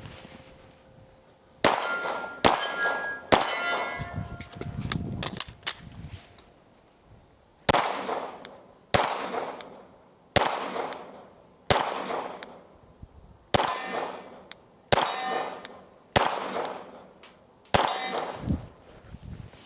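Glock 45 9mm pistol fired about a dozen times at steel targets, with some shots followed by the ring of struck steel plates. The first several shots come in a quick string, then they fall to about one every second and a half.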